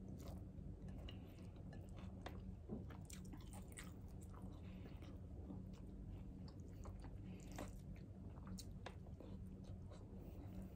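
A person chewing food by mouth, faint irregular smacks and small clicks while eating rice and meat by hand, over a steady low hum.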